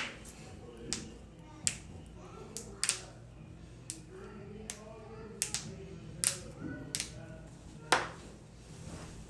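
A series of sharp joint cracks and pops from a body being cracked, about a dozen at irregular intervals, the loudest about eight seconds in. Quiet voices run underneath.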